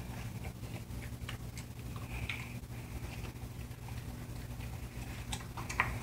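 Black German Shepherd puppy eating from a bowl: faint scattered clicks of her mouth and teeth, with one sharper click near the end, over a low steady hum.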